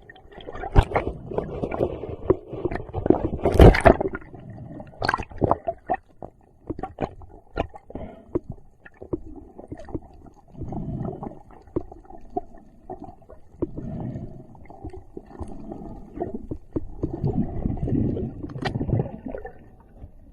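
Water moving and bubbling, muffled, with many scattered sharp clicks and knocks; the loudest knock comes about four seconds in.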